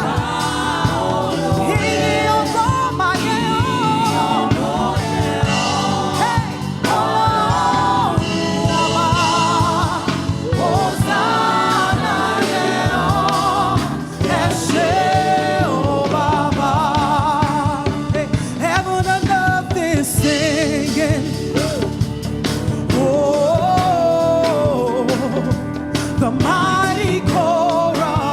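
Live gospel worship music: voices singing with vibrato over a band, with a steady beat throughout.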